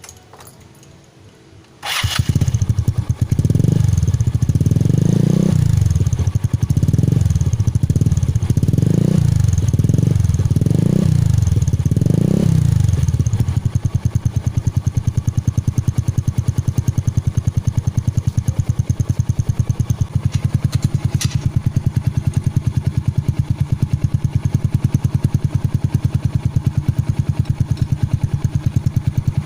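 Yamaha Mio Sporty scooter's single-cylinder four-stroke engine, running through an open aftermarket 'kalkal' exhaust fitted with a turbo-whistle tip. It starts about two seconds in, is blipped about six times, then settles into a steady idle.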